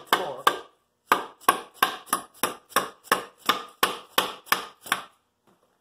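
Dead-blow hammer giving the front of a Honda F23A1 engine block light, repeated taps, about three a second, to break the front plate and crank gear loose. The taps pause briefly under a second in and stop about five seconds in.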